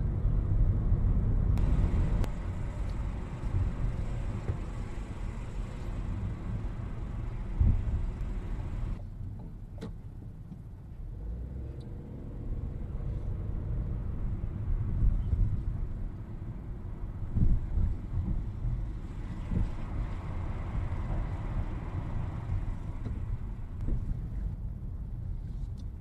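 Car being driven, heard from inside the cabin: a steady low engine and tyre rumble. The higher road noise drops away sharply about nine seconds in and builds again a few seconds later.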